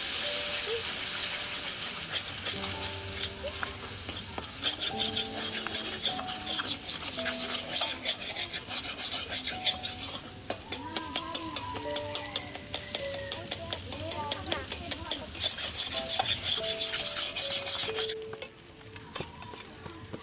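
Eggs sizzling in a hot metal wok while a metal spatula stirs and scrapes them in quick strokes against the pan. The sizzling stops abruptly near the end.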